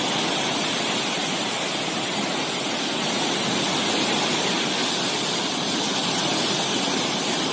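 Floodwater rushing through the open gates of the Gandak barrage: a steady, loud rush of turbulent water during a heavy flood discharge.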